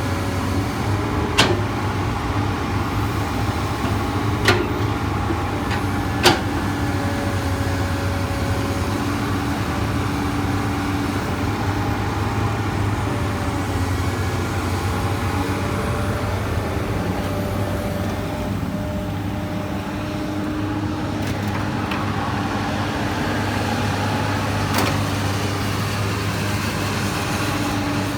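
Komatsu PC200 excavator's diesel engine running steadily under digging load, with hydraulic tones that shift in pitch as the arm and bucket move. Four sharp clanks stand out: three in the first several seconds and one near the end.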